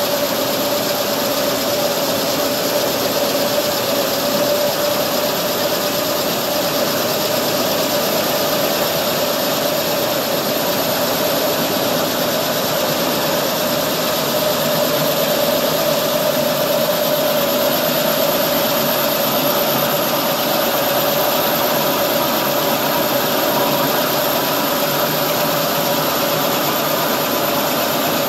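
Tissue paper rewinding machine running steadily on a maxi-roll production line: an even mechanical din with a steady mid-pitched whine, unbroken throughout.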